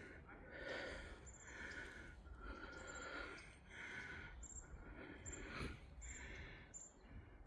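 Faint rustling about once a second, irregular: a person walking along a wooded trail, footsteps and brush brushing past.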